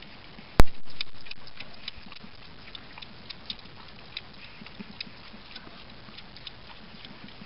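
A goat kid suckling milk from a bottle teat: small, irregular wet clicks and smacks of its mouth and tongue, several a second. One sharp knock about half a second in is by far the loudest sound.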